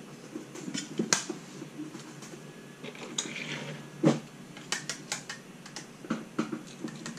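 Small metal hardware and a drilled aluminum bracket being handled: scattered clicks and light knocks, the loudest about four seconds in, with a short rustle just before it.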